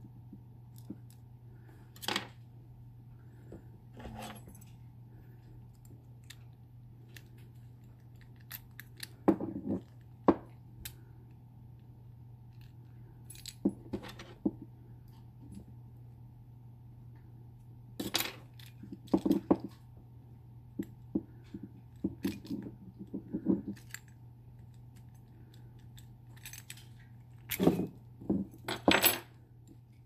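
Small metal clicks, scrapes and jangles from a Master Lock 911 padlock being picked and worked with a key on a key ring, coming in irregular clusters with the loudest near the end.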